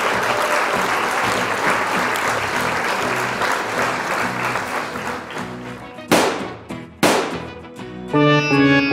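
Added soundtrack: an applause-like crowd sound over background music that fades out, then two sharp hits about a second apart, then brass music starting near the end.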